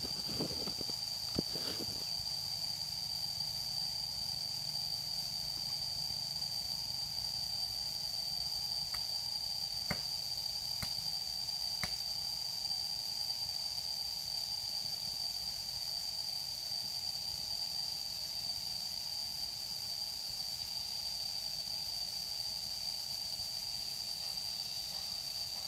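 Steady high-pitched insect drone, one unbroken tone, over a low outdoor hiss. A few rustles and clicks sound in the first two seconds, and a few faint ticks come around ten to twelve seconds in.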